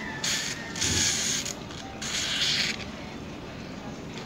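Aerosol hair-removal foam can spraying in three short hissing bursts over the first three seconds, as foam is pushed out onto the upper lip.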